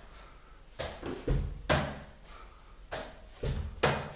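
Volleyball being set with the fingertips against a door and caught, a series of six or so sharp slaps and thuds a second or less apart, ringing briefly in a small bare room.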